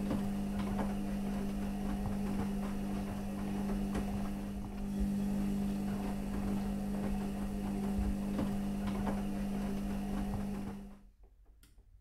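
A steady low mechanical hum with irregular ticks and rattles through it, cutting off suddenly near the end.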